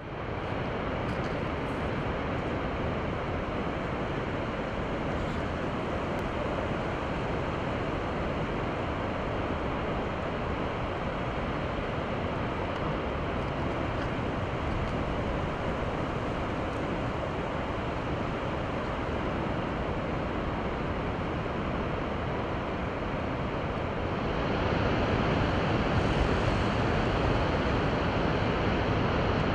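Rjukanfossen, a large waterfall running at full flow, gives a steady, even rush of falling water. It gets louder and brighter about four-fifths of the way through.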